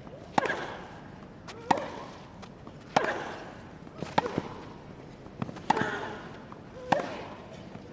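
A tennis rally on a grass court: racquets strike the ball six times, a sharp crack every second and a half or less. Most hits come with a player's short grunt or shriek.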